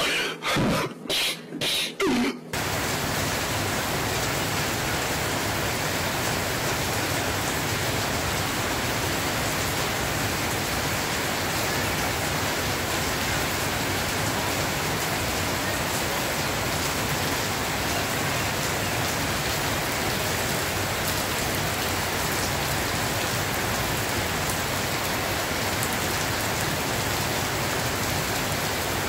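Heavy rain pouring down steadily, an even hiss of rain on leaves, the ground and roofs. It starts abruptly about two and a half seconds in, after a few short bursts of a person's voice.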